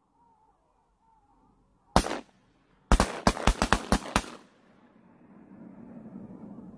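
Duck hunters' shotguns firing at incoming birds. A single shot comes about two seconds in, then a rapid volley of about eight shots from more than one gun over roughly a second and a half.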